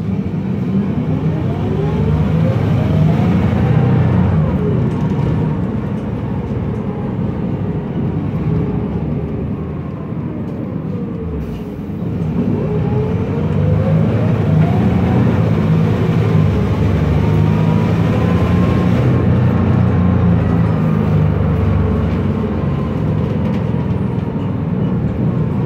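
Cabin sound of a MAN Lion's Classic city bus under way: the ZF Ecomat 6HP504C automatic gearbox whines over the low running of the MAN E2876 CNG engine and road noise. The whine rises as the bus speeds up, sinks as it slows, then climbs again from about twelve seconds in and holds high.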